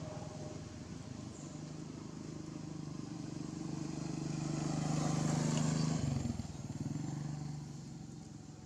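A motor vehicle engine running steadily, growing louder to a peak a little past halfway, then fading away, as a vehicle passing by does.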